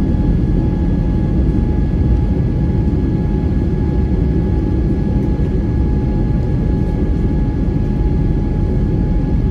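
Cabin noise of an Airbus A320neo's Pratt & Whitney PW1100G geared turbofan engines at climb thrust just after takeoff, heard inside the cabin: a steady, loud rumble with a steady whine over it.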